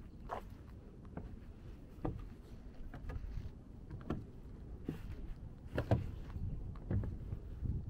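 Footsteps of a hiker on a mountain trail, about one step a second, over a low wind rumble on the microphone.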